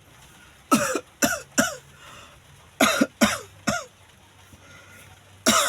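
A man coughing in fits: three coughs, a pause, three more, and another fit starting near the end. Each cough trails off in a falling, groaning voice. It is a nagging cough from a very itchy throat.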